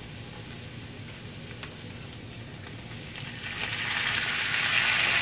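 Shredded cabbage sizzling steadily in a hot cast iron skillet, with a single light click about a second and a half in; about three and a half seconds in, raw seasoned fish pieces are tipped into the pan and the sizzling grows much louder.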